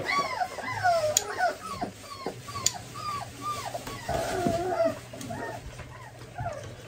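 German Shorthaired Pointer puppy whimpering in a run of short, high-pitched, arching whines, several a second at first and fewer toward the end, in distress at having its nails clipped. A couple of sharp clicks sound between the whines.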